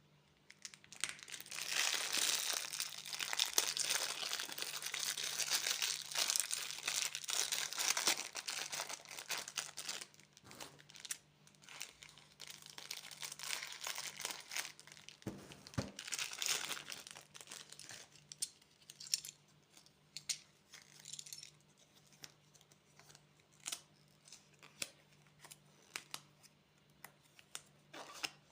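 Candy packaging being crinkled and torn open by hand: a long spell of dense crinkling, a second shorter spell in the middle, then scattered small crinkles and clicks.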